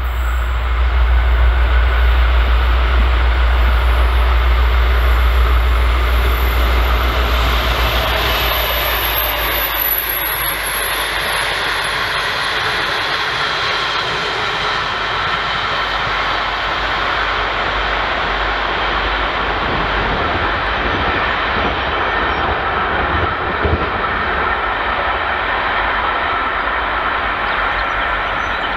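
V/Line N-class diesel locomotive passing at speed with a passenger train. A deep engine rumble for the first several seconds as the locomotive goes by, then a steady rumble of carriage wheels on the rails with a few knocks as the train draws away.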